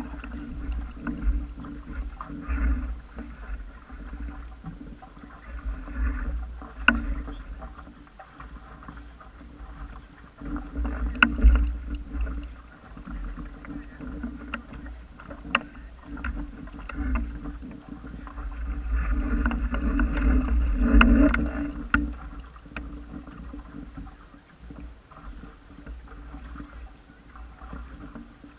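Water washing and gurgling along the hull of a small wooden sailing dinghy under way, with a steady low rumble of wind on the microphone and a few sharp knocks from the boat's fittings. The wash swells louder about two-thirds of the way through, then eases.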